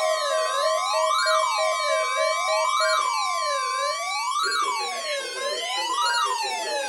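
Several weather alert radios sounding their alarms together for a Required Weekly Test. A siren-style tone wails up and down about every second and a half. Under it, a steady tone sags lower in pitch toward the end, and a rapid beeping stops about three seconds in.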